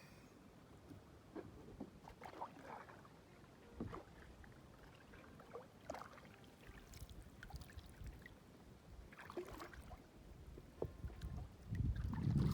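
Soft water sounds and light knocks and splashes around a kayak on the water, with a low rumble of wind on the microphone starting near the end.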